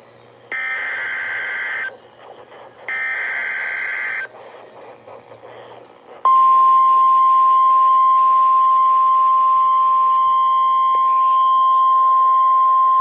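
Emergency Alert System SAME header: two bursts of buzzing digital data tones, each about a second and a half long. Then, about two seconds later, the steady single-pitch 1050 Hz weather-radio attention tone starts and holds. It signals that a warning message is about to be read.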